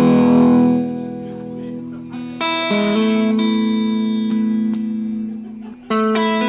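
Electric guitar played clean through a 2-watt Vox Lil' Night Train amp head with its bright switch on: strummed chords ring out, with new chords struck about two and a half, three and six seconds in.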